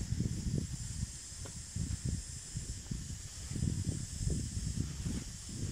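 Hoes chopping into soil in short dull thuds, among irregular low rumbling from wind on the microphone, over a steady high hiss.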